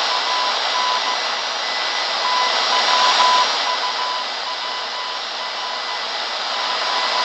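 Morse code signal on a shortwave radio receiver: a single steady tone keyed on and off in dots and dashes over loud static hiss. The keying stops for about a second near the start, then resumes.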